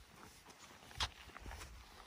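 Faint footsteps on a concrete walkway, with one sharp click about a second in.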